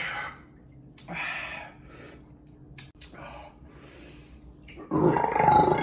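A man's loud, wet, foamy burp after drinking beer, near the end, preceded by a short breathy sniff about a second in.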